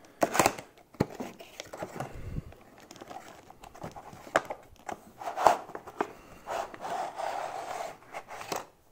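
A cardboard toy box being opened by hand: crinkling and clicks of the card flap and packaging, then the plastic blister tray scraping as it slides out of the box near the end, with a couple of sharper knocks along the way.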